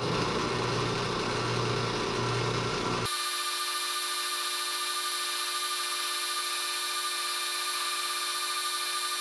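Drill press spinning a wire wheel brush, with the steel hook jaw of a Pexto pipe wrench held against it to strip rust. The sound changes abruptly about three seconds in, to a steadier, more even whine.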